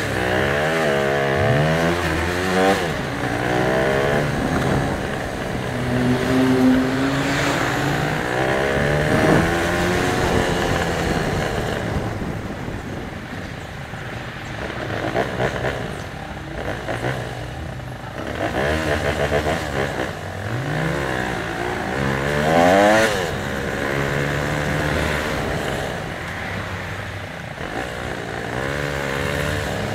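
Sachs MadAss 125's single-cylinder 125cc engine under way, its pitch rising again and again as it accelerates and dropping back between gears.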